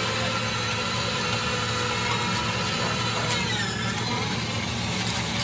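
An engine running steadily at idle, a low even drone.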